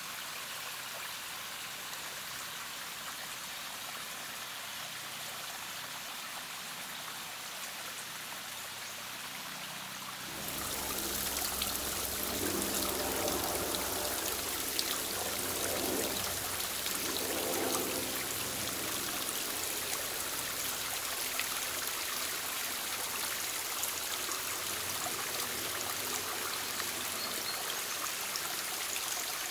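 Spring water trickling over stones, growing louder about ten seconds in to a steady splashing and dripping of water falling in thin streams down a mossy stone wall.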